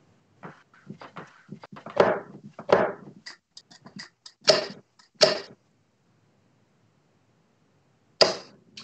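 Darts being pulled out of a bristle dartboard: a run of light clicks and knocks, with a few sharper ones between two and five and a half seconds in, then quiet.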